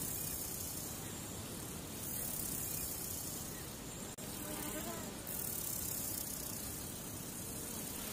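Steady hiss of static-like noise, with a brief dropout about four seconds in.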